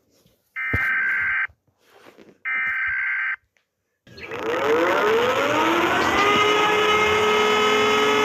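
Emergency Alert System alarm: short bursts of digital data tones, each just under a second long and a second apart, the EAS header. About four seconds in, a loud alarm tone swells in, its several pitches gliding upward and settling into a steady chord.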